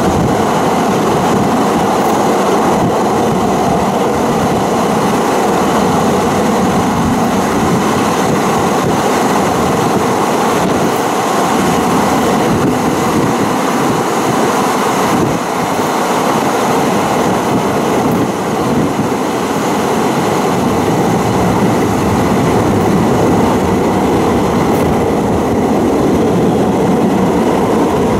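San Francisco Muni Metro light rail vehicle running through a tunnel: a loud, steady rumble of steel wheels on rails.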